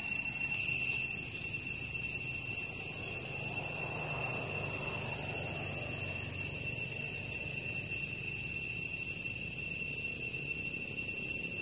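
Steady, high-pitched drone of insects, several constant tones held without a break. A soft swell of broader noise rises and falls about halfway through.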